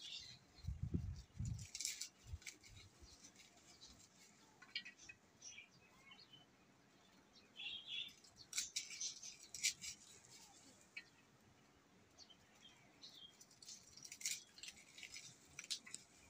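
Quiet sounds of handwork and a small cooking fire: scattered faint clicks and rustles of hands peeling over a plate, with a few low thumps about a second in.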